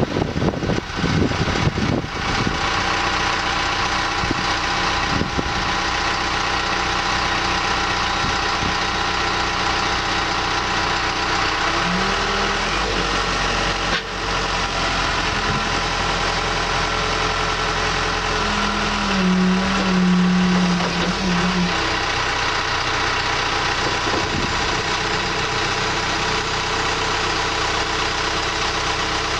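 Case skiploader's diesel engine catching with a puff of black smoke and settling into a steady idle within the first couple of seconds. Around the middle it takes on a whining load twice, the second time a little louder, as the hydraulics raise the front loader arms to cycle hydraulic fluid through the system.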